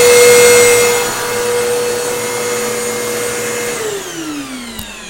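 Hoover Elite Rewind upright vacuum cleaner running with a steady whine and rush of air. About four seconds in it is switched off, and the motor winds down in a falling whine that fades. A faint click comes near the end.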